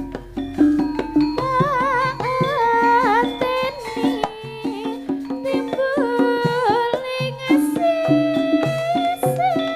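Javanese campursari-style gending played live: a melody line with heavy vibrato rides over drum strokes and a repeating pattern of short low notes.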